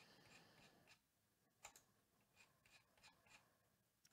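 Near silence: quiet room tone with a handful of faint, sharp computer mouse clicks.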